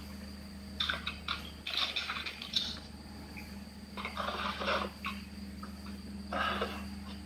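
Coloured pencil scratching on paper in quick back-and-forth colouring strokes, in three spells, over a steady low hum.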